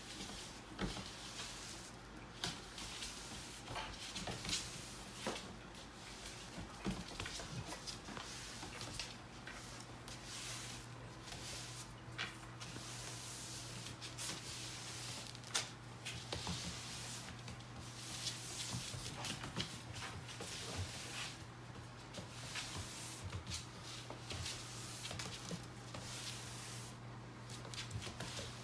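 Broom bristles swishing and rubbing across a laminate floor, with irregular light knocks and clicks as a puppy scrabbles on the floor and pounces on the broom head. A steady low hum runs underneath.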